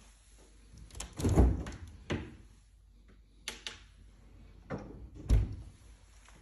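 Integrated fridge door behind a wood-effect cabinet front pulled open with a thump about a second in, then shut with a second thud near the end, with a few lighter clicks in between.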